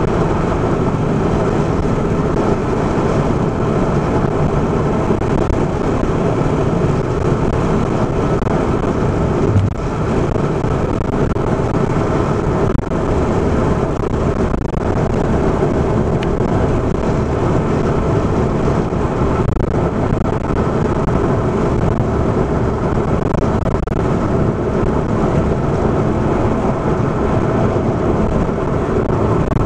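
Steady road and tyre noise with engine drone from a car moving at highway speed, heard from inside the car. A single brief knock about ten seconds in.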